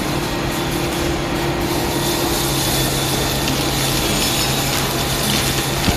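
Steady mechanical running noise with a constant low hum underneath.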